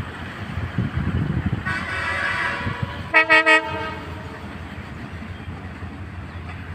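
Alco WDM-3A diesel locomotive sounding its horn as it approaches: a fainter blast about two seconds in, then three short, loud toots about three seconds in, over the steady rumble of the oncoming train.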